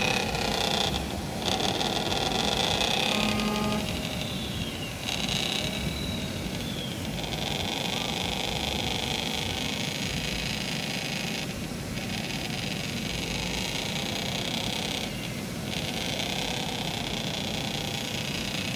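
Radio-controlled scale tipper truck driving over a sand track, under steady outdoor background noise, with faint voices in the first few seconds.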